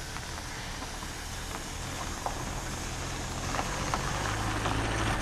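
Narrow-gauge steam tank locomotive moving slowly towards the listener: a low rumble that grows steadily louder, with scattered clanks and knocks from about two seconds in.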